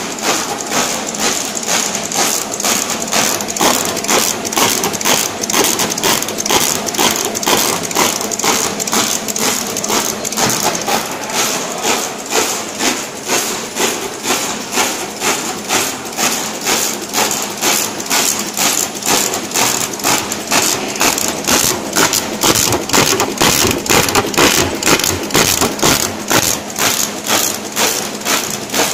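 Automatic label printing machine running, a steady mechanical clatter repeating evenly at about two to three strokes a second.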